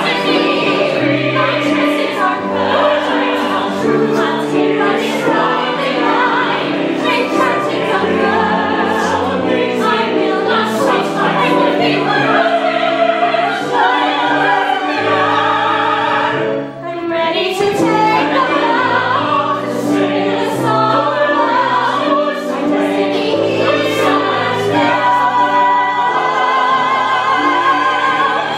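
Stage-musical cast singing together in chorus over instrumental accompaniment, with a brief dip in the sound about two-thirds of the way through.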